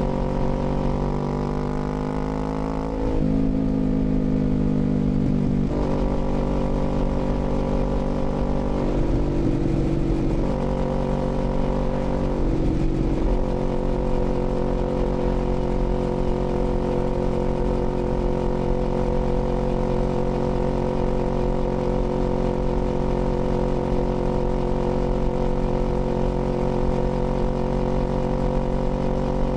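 Kawasaki Z400's parallel-twin engine running under way: the revs fall for the first few seconds and pick up again about three seconds in, dip briefly twice around ten and thirteen seconds, then hold a steady cruise. Low wind rumble on the microphone underneath.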